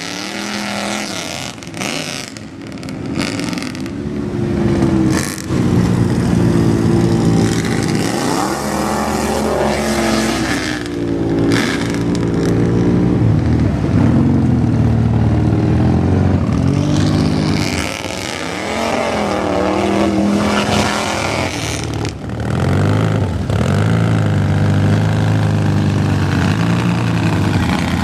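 Lifted pickup mud truck's engine revving hard again and again, its pitch climbing and dropping several times, while the tyres churn and splash through muddy water.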